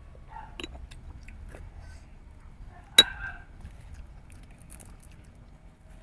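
Eating sounds: quiet chewing and biting with scattered small clicks, and one sharp, loud click about three seconds in.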